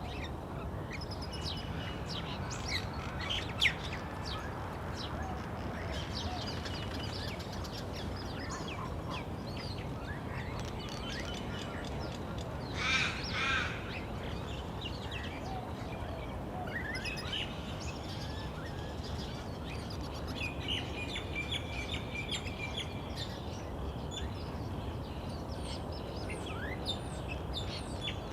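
Suburban creek ambience: small birds chirping and calling over a steady low wash of water. A louder two-part bird call comes about thirteen seconds in.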